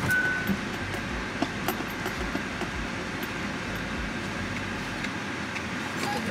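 Steady cabin noise of a car, with scattered light clicks; a car's warning chime gives one short beep right at the start.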